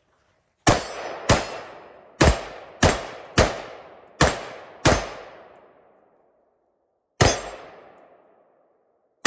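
A semi-automatic rifle fired eight times, in quick strings of shots about half a second apart, with one more shot after a pause of about two seconds. Each sharp crack trails off into a long decaying echo.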